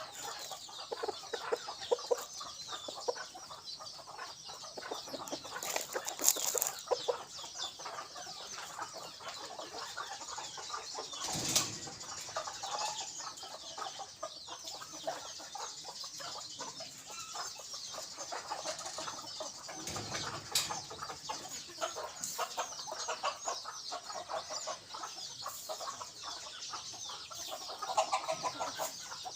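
Decoy junglefowl clucking again and again in short calls, louder a few times, over a dense high-pitched chatter.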